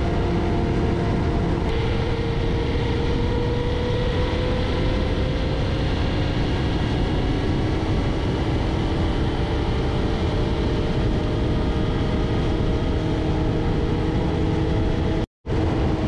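Motor vehicle driving along a road at a steady speed: a steady rush of wind and road noise with a low engine note that rises slowly in pitch. The sound cuts out for a moment near the end.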